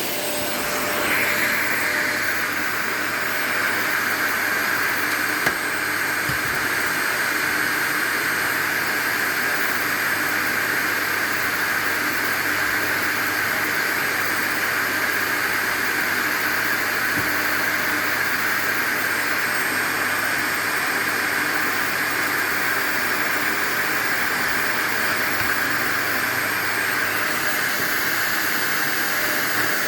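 Vacuum cleaner running steadily with a constant rushing hiss, which grows louder about a second in.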